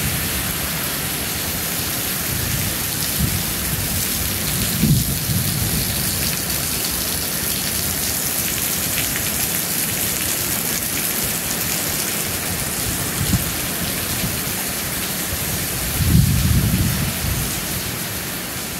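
Heavy hurricane rain pouring steadily, with gusts of wind buffeting the microphone in low rumbles now and then, the strongest near the end.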